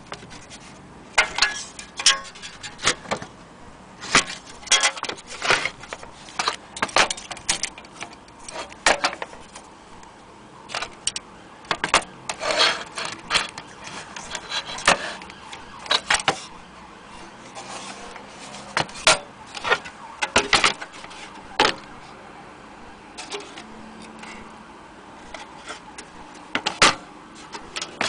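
Antique sheet-tin magic lantern projector being handled: its metal parts clink, clack and rattle in irregular sharp clicks and knocks, several in quick succession at times, with short pauses between.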